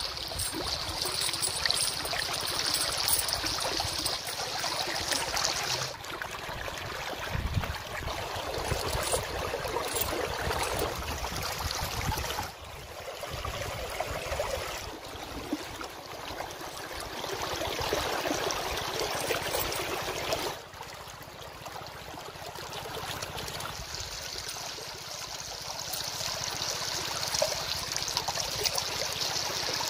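Shallow river water rushing over rocks, a steady wash with no tune or rhythm. The sound changes abruptly a few times where the level steps up or down.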